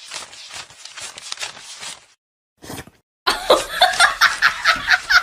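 A person laughing in a quick run of loud bursts, starting a little after halfway and following a couple of seconds of softer, scratchy noise and a brief pause.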